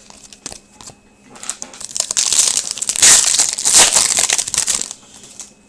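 Crinkling and crumpling of a trading card pack wrapper handled in the hands. It starts with a few light clicks, then a loud crinkle from about a second and a half in that fades near the end.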